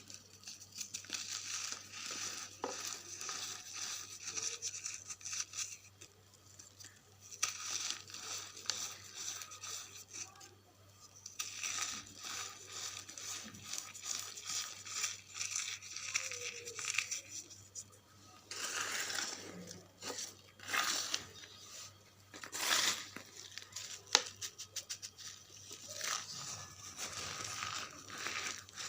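Dry, crunchy charcoal being crumbled: bursts of fine crackling and crunching with short pauses between them, and one sharper crack about three-quarters of the way through.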